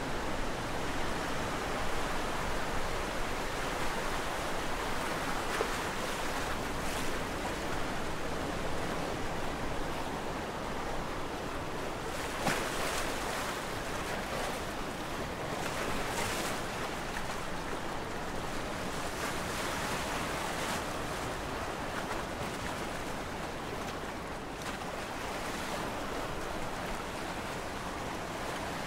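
Steady rushing noise like surf washing in, swelling louder now and then.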